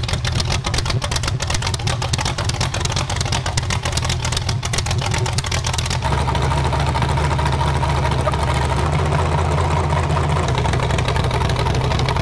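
Demolition derby car's engine running just after being fired up, rough and uneven at first, then settling into a steadier idle about six seconds in.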